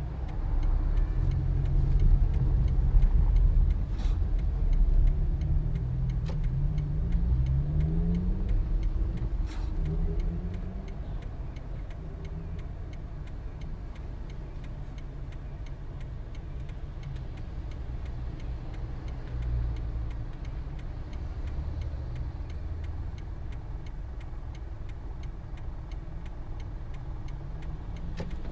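Toyota Passo small hatchback being driven: engine and road rumble, with the engine note rising several times as it accelerates, then settling to a steadier cruise. A few light ticks or knocks.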